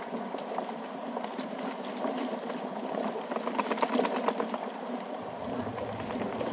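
Water washing steadily against a rocky shore. Over it comes a run of sharp clicks and clacks as a herd of reindeer walks over the stones, thickest around the middle.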